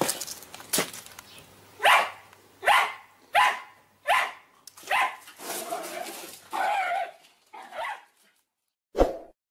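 A small dog barking repeatedly, about ten sharp barks in quick succession, the later ones longer and more drawn out.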